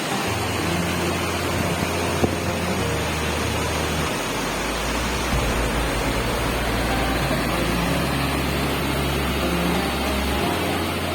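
Steady rushing of a waterfall, with low sustained music tones shifting every few seconds underneath.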